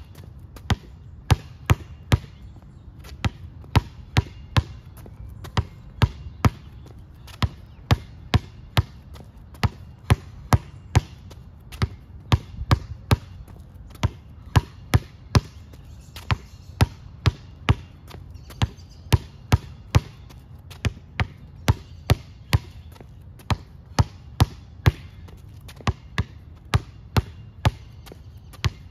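Basketball pounded hard against asphalt, bouncing in a steady rhythm of about two to three sharp bounces a second, the dribbling hand alternating from side to side.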